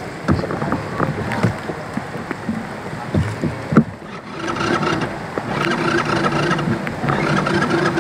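Floodwater sloshing and splashing as someone wades through a flooded street, with irregular splashes in the first half. From about halfway a humming sound joins in short repeated spells.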